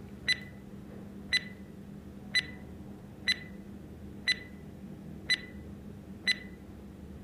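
Quiz countdown timer sound effect: a short, high electronic tick-beep about once a second, seven times.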